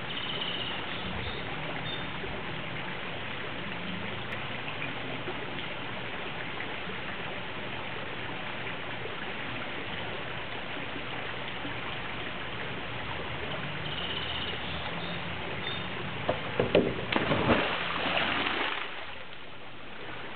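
A steady hiss of background noise, then about three-quarters of the way through a person dives into a swimming pool: a sudden loud splash, with water churning for a couple of seconds before it settles.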